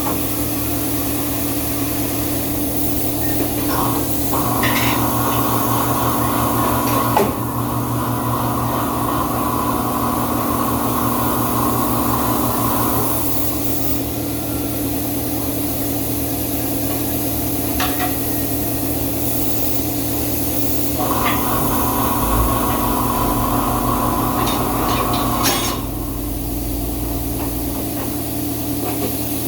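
Old Coseng tire-changing machine at work, its motor running in two long stretches of several seconds each over a steady shop hum, with a few sharp metal clicks.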